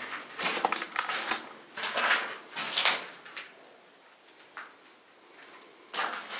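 Footsteps crunching and scraping over rubble and grit on a concrete floor: several uneven steps in the first three seconds, a lull, then another step about six seconds in.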